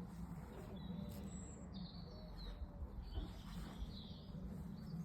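Birds chirping faintly, a string of short high chirps and whistles, over a low steady rumble.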